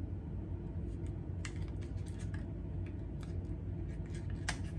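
Long acrylic fingernails clicking and tapping against a small plastic lipstick tube as it is turned over in the hands: a few scattered light clicks starting about a second and a half in, over a steady low hum.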